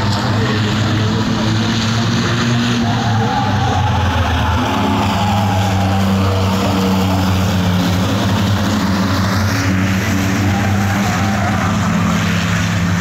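Engines of a pack of compact stock cars running together around a short oval track, a loud, steady drone.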